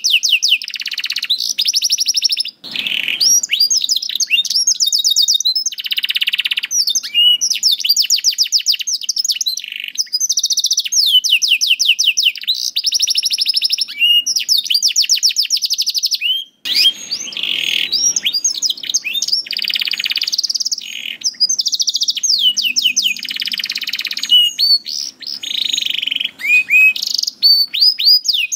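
Domestic canary singing a long, continuous song of rapid trills, changing from one high trilled phrase to the next every second or two, with a couple of short breaks.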